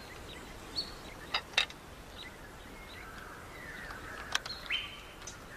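Outdoor bush ambience: short, scattered bird chirps and whistles over a low steady hiss, with a few sharp clicks.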